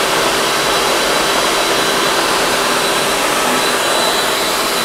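Electric food processor running at a steady speed, puréeing black bean hummus: a loud, even motor whir with a constant high whine over it.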